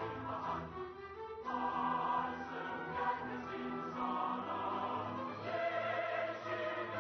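Large mixed choir singing long held chords with a symphony orchestra. The sound thins briefly about a second in, then the full chord comes back.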